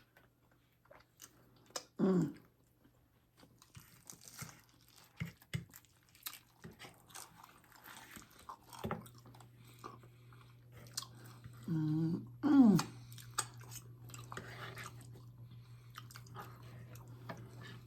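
Close-up chewing and crunching of crispy tostada shells with beef and chorizo, as scattered crackles and mouth sounds. There are a couple of short voice sounds, and a low steady hum starts about halfway in.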